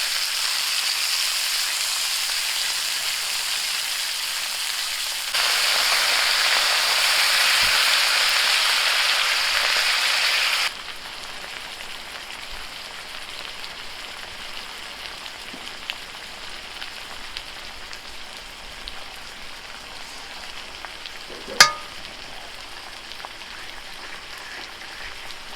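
Pork sizzling in a hot pan, a steady hissing crackle that gets louder for a few seconds in the middle and then drops to a quieter sizzle. A single sharp clink comes near the end.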